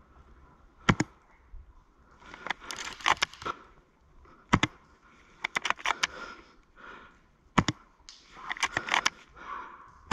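Three sharp single cracks about three seconds apart, each followed a second or so later by a quick cluster of clicks and rustling.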